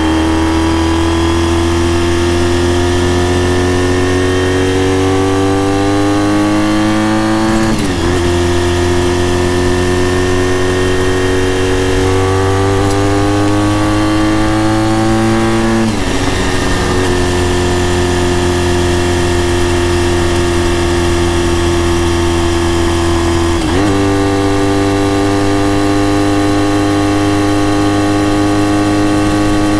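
Honda RVF400 NC35's gear-driven-cam V4 with a TSR slip-on silencer, pulling under acceleration: the engine note climbs steadily, drops briefly at three upshifts about eight seconds apart, and climbs only slowly after the last one.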